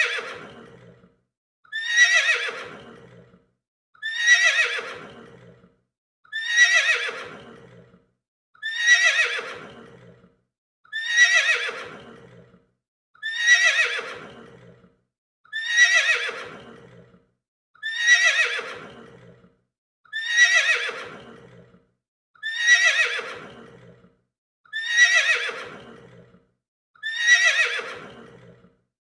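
A horse whinnying, the same call repeated about every two and a quarter seconds, thirteen times; each whinny is about a second long and falls in pitch.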